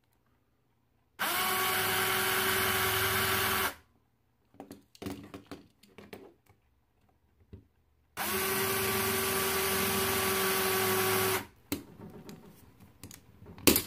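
Drill press running twice, for about two and a half seconds and then about three seconds, a steady motor whine as it drills out the rivets holding a die-cast toy car together. Between and after the runs, small clicks and scrapes of the little metal car being handled and pried apart.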